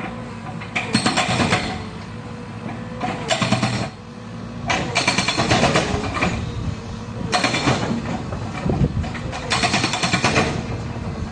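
Hydraulic breaker on a Caterpillar 307 excavator hammering in five short bursts of rapid blows, with the excavator's engine running steadily between them.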